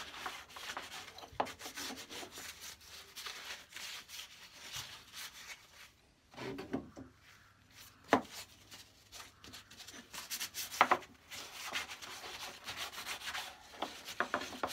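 Cloth rubbing Danish oil into a wooden saw handle: a quick, uneven run of rubbing strokes, with a few sharp knocks, the loudest about eight and eleven seconds in.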